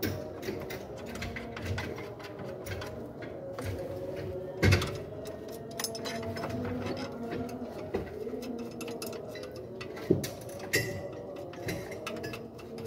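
Hand work in a car's engine bay: scattered light clicks and knocks of metal parts and tools being handled, with two louder knocks about five and ten seconds in.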